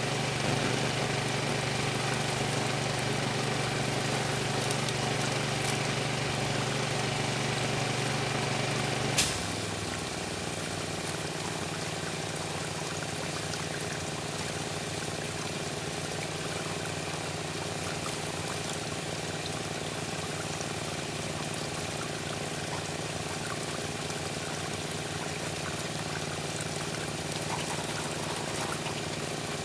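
Pressure washer running steadily, its engine and pump humming under the hiss of spraying water. About nine seconds in there is a sharp click, and the low engine hum drops to a quieter, lower level.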